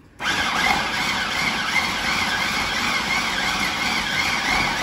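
Electric food processor running, its blade chopping chunks of smoked bluefish. It starts with a steady motor whir just after the start, with a quick regular wobble in the sound.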